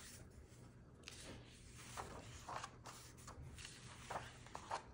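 Faint rustles and soft taps of a picture book's paper pages being turned and handled by hand, several short sounds spread through the few seconds.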